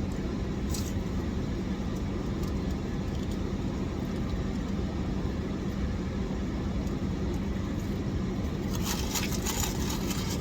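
Steady low hum of an idling car engine, heard from inside the cabin, with a brief crackle near the end.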